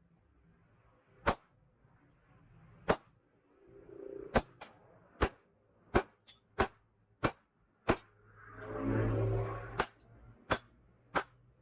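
Hammer striking steel on an anvil in single clanging blows while a machete blade is forged. The blows come about one every second and a half at first, then faster and uneven. A loud rushing noise lasts about a second and a half a little past the middle.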